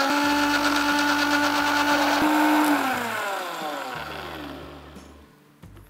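Preethi Zodiac mixer grinder running steadily at a high whine while it grinds cooked broccoli into a fine purée. About three seconds in it is switched off, and the motor winds down with a falling whine that fades away.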